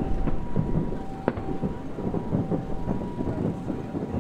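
Distant aerial fireworks shells bursting: a few sharp cracks, the clearest about a second in, over a continuous low rumble of booms. A faint two-note tone alternates in the background.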